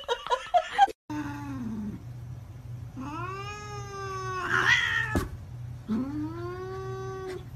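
Cat caterwauling: three drawn-out yowls, a short falling one, then a longer one that ends in a brief harsh burst, then another long held one.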